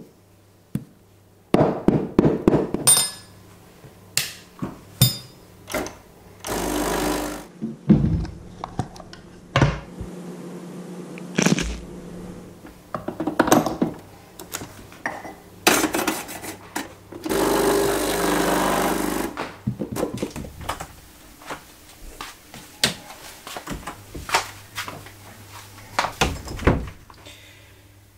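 Breville espresso machine being used: repeated knocks and metal clatter as the portafilter is knocked out against a knock box and locked into the group head, with two short spells of the machine running steadily, one of about a second and one of about two seconds.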